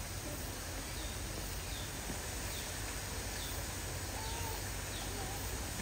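Steady outdoor background noise with faint, short high chirps that fall in pitch, repeating about once a second.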